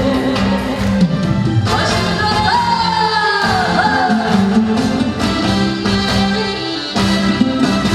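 Korean trot song performed live: a singer over band accompaniment with a steady beat. About two seconds in, a high melody line with sliding, falling notes comes to the front for a couple of seconds.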